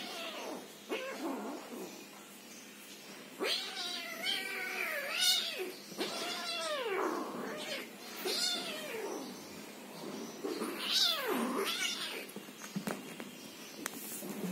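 Persian kittens meowing while play-fighting: a few short calls, then about four drawn-out meows that bend up and down in pitch.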